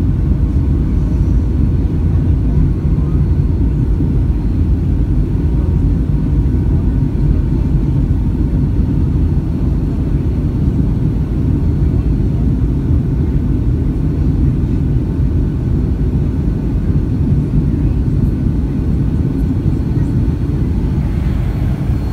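Steady low rumble of airflow and jet engines in the cabin of a Boeing 757-200 on final approach, with a little added hiss near the end as the plane comes down to the runway.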